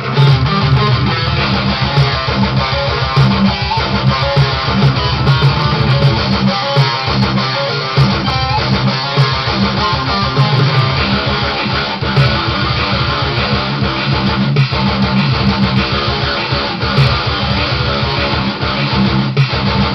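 Electric guitar playing a metal riff, with fast picked notes throughout.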